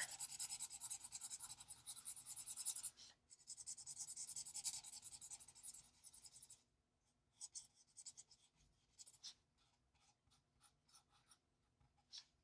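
Alcohol marker nib scratching across paper in quick back-and-forth colouring strokes. The strokes come in two runs of about three seconds each, thin out to a few scattered strokes past the middle, then stop.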